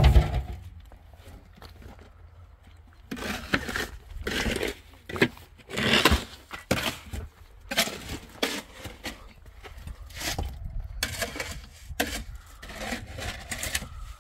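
Irregular knocks, thumps and scraping of hand building work, with one loud thump at the very start and uneven clatter from about three seconds in.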